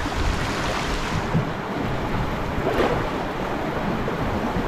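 Fast river rapids rushing and churning past a canoe, with wind rumbling on the microphone. One brief louder surge of water comes a little under three seconds in.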